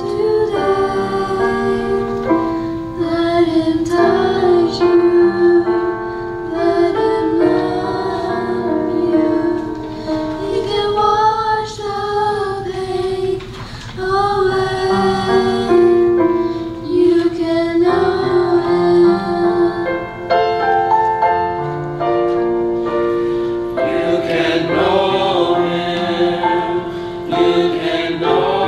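A small mixed youth choir of women, girls and men singing an anthem, holding long notes.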